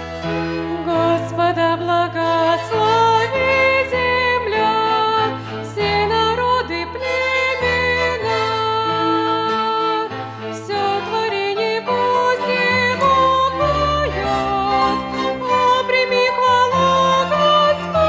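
Violin orchestra playing a hymn tune, the melody in held, smoothly moving notes over sustained bass notes.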